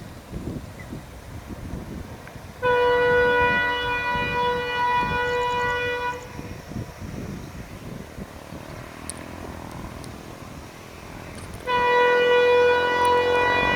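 Horn of a WDG-3A diesel locomotive running light, sounding one steady blast of about three and a half seconds starting near three seconds in and another starting near the end. A low rumble from the approaching locomotive fills the gap between the blasts.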